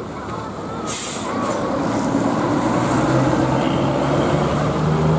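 Large diesel tour bus engine running as the bus drives past, a steady low rumble, with a short burst of hiss about a second in.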